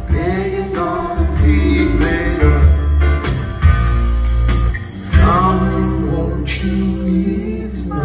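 A recorded song with a singing voice and strong bass, played loud through a hi-fi system's Cessaro horn loudspeakers.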